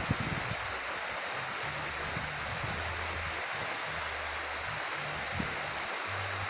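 River water flowing in the shallows, a steady rushing hiss, with an intermittent low rumble on the microphone.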